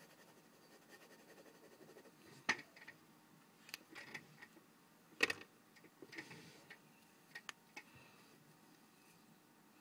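A handful of sharp clicks and taps scattered over a quiet background, the loudest about two and a half and five seconds in, with a short soft brushing noise around six seconds.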